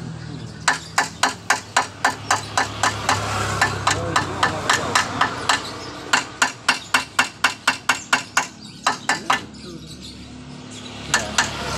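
Rapid, evenly paced hammer blows, about three to four a second, in a long run with a short break midway, stopping a couple of seconds before the end and followed by two more blows.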